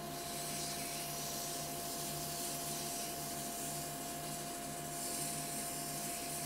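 Wood lathe running with a steady motor whine while 600-grit sandpaper hisses against the spinning banksia-pod and epoxy pen blank.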